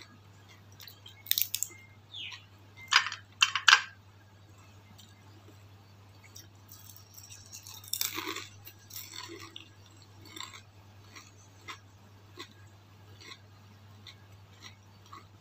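Close-up eating sounds of lumpia spring rolls with rice noodle filling: loud crunching bites in two clusters within the first four seconds and again about eight seconds in, with quieter chewing and mouth clicks between. A faint steady low hum runs underneath.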